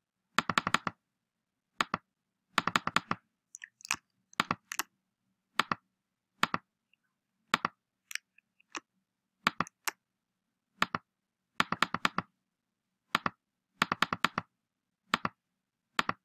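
Computer keyboard typing and mouse clicking: short flurries of a few keystrokes and single clicks, with pauses in between.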